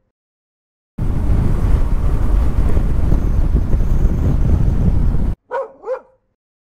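Motorcycle riding on a road, heard through a helmet-mounted camera microphone: loud wind rush with engine and road noise, starting about a second in and cutting off abruptly. Near the end come two short bark-like yelps about a third of a second apart.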